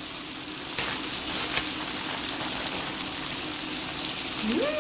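Potatoes and sausage pieces sizzling in a frying pan, a steady crackling hiss that grows louder about a second in. Near the end a person hums 'mmh'.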